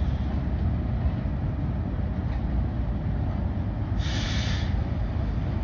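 Train at the station running with a steady low rumble, and a short hiss about four seconds in.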